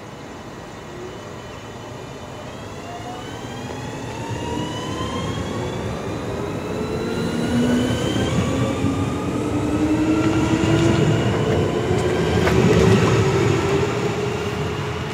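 DB class 440 (Alstom Coradia Continental) electric multiple unit accelerating away from a station stop: its traction drive gives a whine of several tones rising steadily in pitch as it speeds up. The sound grows louder as the cars pass and fades as the train leaves, over a rumble of wheels on the rails.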